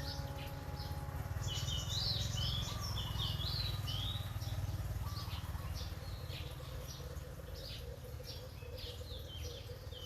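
Many small birds chirping and twittering in quick, varied, high notes over a low steady rumble, as in a nature-sounds background track.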